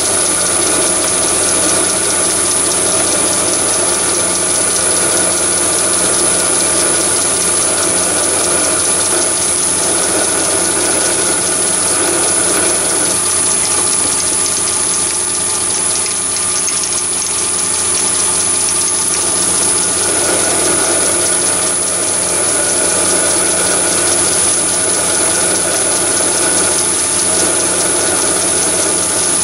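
Chinese mini lathe running steadily at about 980 rpm while a twist drill in the tailstock chuck bores into the spinning workpiece: an even machine hum and whine with no breaks.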